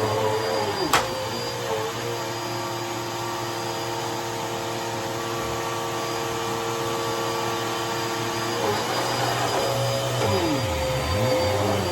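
Dirt Devil Breeze Cyclonic vacuum cleaner running with a steady motor whine; its pitch wavers up and down at first and again from about nine seconds in, and holds steady in between. A sharp click about a second in.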